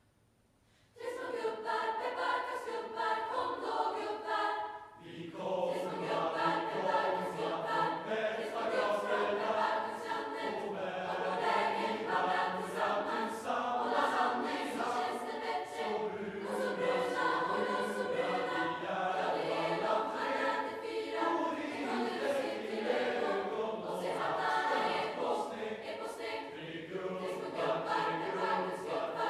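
A large choir singing, starting about a second in from near silence, with a short break around five seconds in before the singing carries on.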